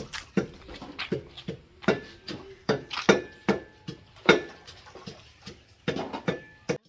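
Pestle pounding hot pepper and onions in a mortar: repeated uneven thuds, about two or three a second, cutting off suddenly near the end.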